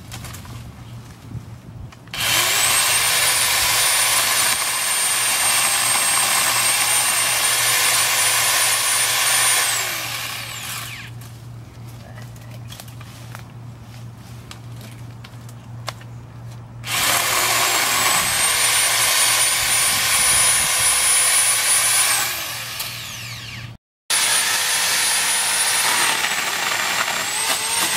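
Corded electric pole chainsaw cutting tree branches, run in three long bursts of several seconds each. Each burst starts with a rising high whine as the motor spins up, holds steady, and falls away as it is released.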